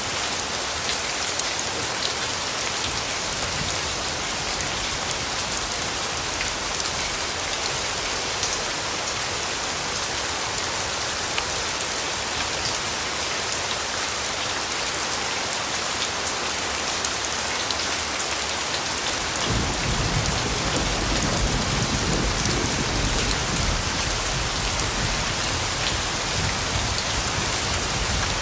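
Steady rain falling, a dense even hiss with scattered drop ticks. A low rumble of distant thunder comes in about two-thirds of the way through and carries on.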